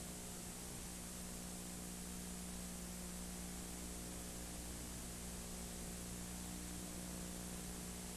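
Steady background hiss with a low electrical hum underneath, unchanging throughout.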